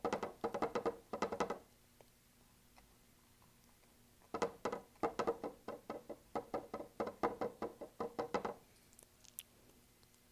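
Paintbrush dabbing paint onto a stretched canvas: two runs of quick taps, about four or five a second, with a pause of a couple of seconds between them.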